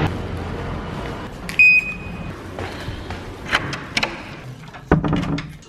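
A key working a door's deadbolt lock, a few sharp metallic clicks, then a louder thump near the end. About a second and a half in there is a single short high electronic beep, over a low rumble of street traffic at the start.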